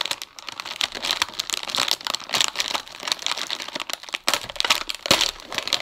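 Plastic wrapper of a Double Stuf Oreo package crinkling and crackling as its film lid is peeled back and pulled open, with one louder crack near the end.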